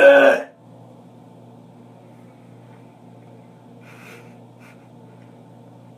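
A young man gags loudly, one short strained retching heave with his voice in it, at the very start. About four seconds in comes a short, faint breathy sound, over a steady low background hum.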